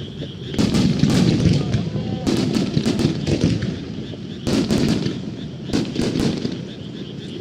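Starmine fireworks display: aerial shells bursting in quick clusters of sharp bangs a second or two apart, over a continuous low rumble of booms.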